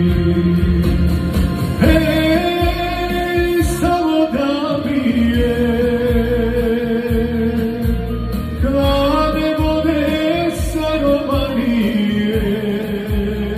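A man singing a Balkan folk-pop song into a microphone, with long held notes that bend and slide in pitch, over a backing track with a steady low bass.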